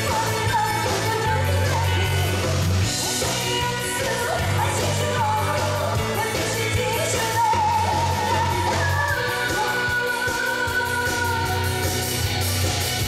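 Live band playing an upbeat pop-rock dance song with a steady drum-and-bass beat, a singer's voice over it.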